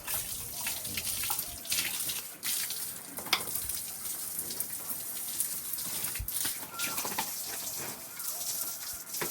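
Water from a hose spraying and splashing onto a pig pen's dung-covered floor and the pigs, a steady hiss with a few small knocks.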